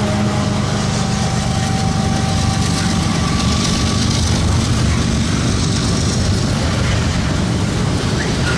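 A CSX double-stack intermodal train passing close by. The hum of a GE ES44AC-H diesel locomotive fades over the first few seconds as it moves away, leaving the steady rumble of the loaded well cars rolling by on the rails.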